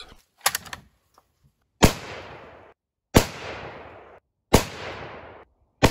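Four unsuppressed shots from a 7mm Remington Magnum bolt-action rifle, about a second and a half apart. Each sharp report is followed by an echo that dies away over about a second.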